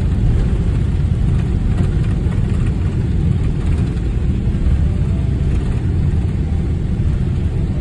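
Cabin noise of a jet airliner rolling out on the runway after touchdown: a steady, loud low rumble of engines and the roll along the runway.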